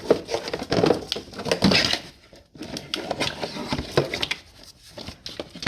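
Irregular clicks, knocks and rustling from plastic and metal parts being pulled loose and handled under the hood, busiest in the first two seconds and again after a brief lull.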